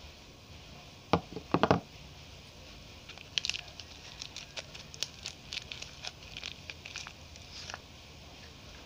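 A few sharp knocks about a second in as soap bars are handled on the floor, then the wrapper of a Cinthol Lime soap bar crinkling and crackling in quick small ticks as it is opened and pulled off.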